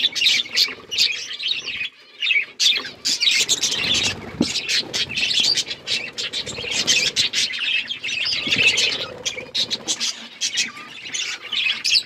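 A flock of budgerigars chattering continuously, a dense run of short, high chirps and squawks overlapping one another without pause.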